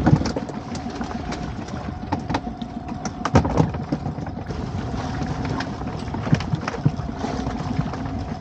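Small fishing boat's outboard engine running steadily at idle, with scattered knocks and clatter as fish and tackle are handled aboard; the loudest knocks come about three and a half seconds in.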